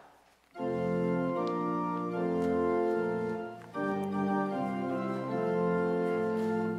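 Organ playing sustained chords that start about half a second in and change every second or so, with a brief dip in loudness about halfway through.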